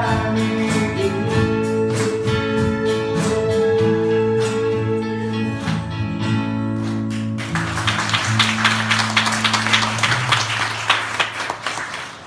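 Live band finishing a song: electric guitar strums over held chords, ending about halfway through with the final chord left ringing. Audience applause then breaks out and continues over the fading chord.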